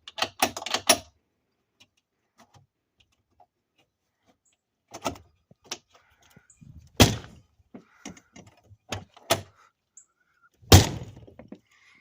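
RV entry door being shut and worked to test a newly fitted handle and locking latch held by only one screw: a few quick latch clicks at the start, then a series of thunks and knocks, the loudest about seven and eleven seconds in.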